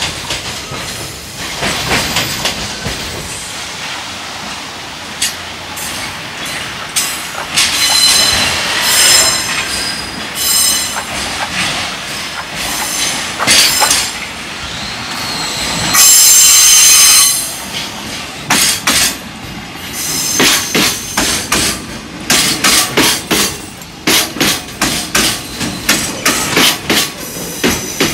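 Freight train of container wagons rolling past, its steel wheels clacking over the rail joints in uneven runs that become rapid and close-set in the last third. About two-thirds of the way in there is a loud high screech lasting about a second, typical of wheel squeal.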